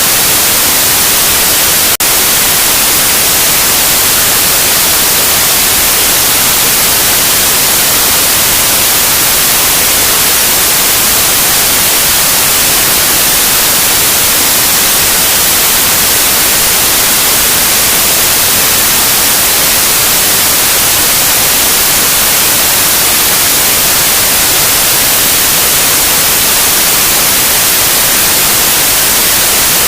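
Loud, steady synthetic white noise: an even hiss across the whole range, strongest in the treble, with one tiny break about two seconds in.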